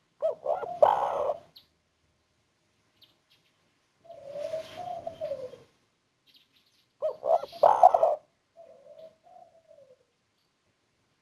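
Spotted dove (tekukur) cooing its song, a 'kuk 1' bird that ends the phrase on a single 'kuk' note. There are two loud, clear coo phrases, about half a second in and again about seven seconds in, and each is followed by a softer, drawn-out coo.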